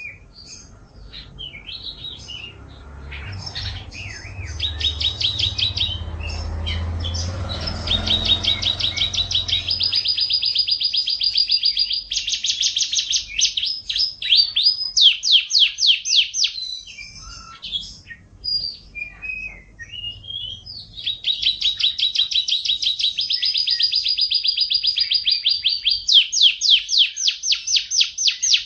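Domestic canary singing a long song of rapid trills, each a run of quick repeated notes held for a few seconds before switching to another pitch and speed. A low rumble runs under the song for the first ten seconds or so.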